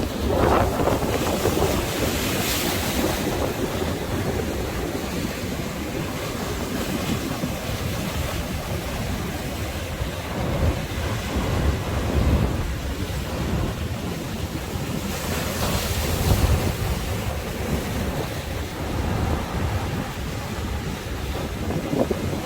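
Sea waves surging and washing in, swelling twice into a louder rush, under strong wind buffeting the microphone with a heavy low rumble.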